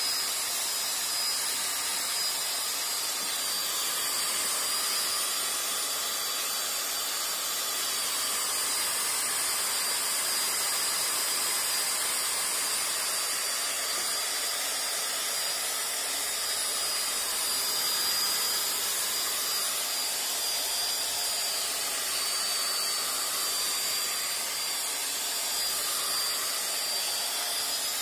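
Steady whine and hiss of a power tool spinning a buffing pad, polishing a plastic headlight lens with toothpaste as the compound.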